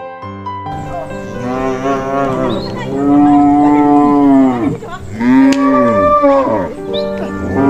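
Cow mooing in several long drawn-out moos, with a break near the middle, over soft piano background music.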